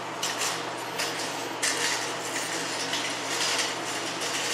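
Store background noise: a steady low hum with scattered clinks and clatter over it.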